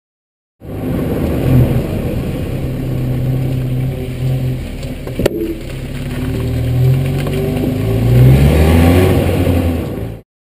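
Hyundai i30's rear shock absorber and coil spring giving one loud clunk about halfway through, as the car drives up a ramp while turning. The car's engine runs under load throughout, its note rising and falling. The clunk comes from a large stone lodged inside the rear coil spring.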